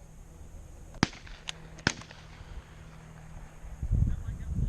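Distant shotgun shots at a passing dove: two sharp reports about a second apart, with a fainter crack between them. A low rumble follows near the end.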